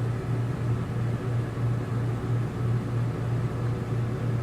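Rooftop RV air conditioner running: fan rushing with a steady low hum that throbs slightly. The unit is running but the vent air is not cooling, and the owner says this one is not working at all.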